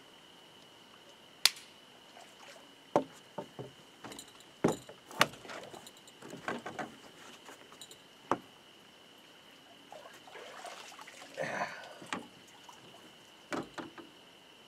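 Scattered sharp knocks and clicks, with short bursts of splashing and dripping water, as a small flathead catfish is landed and handled on a wooden dock.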